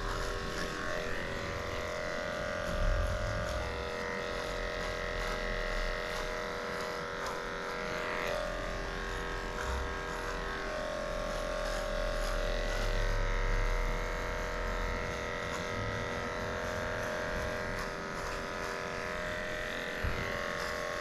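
Cordless electric pet clippers running steadily while shaving matted fur off a schnauzer's leg.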